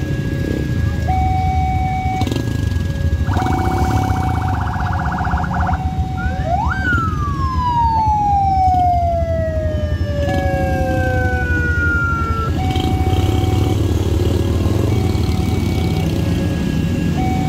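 Railway level-crossing warning alarm sounding two tones in turn, switching about once a second. About three seconds in, a rapid buzzing tone sounds for a couple of seconds. Then a siren winds up quickly and winds slowly down over about six seconds, over the rumble of engines.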